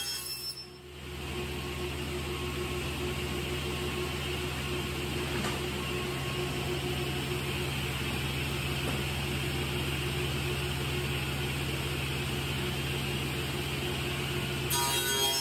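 Altendorf sliding table panel saw running steadily with the blade spinning free between cuts, a steady hum. Near the end the blade bites into a thin panel and the sound rises to a cutting whine.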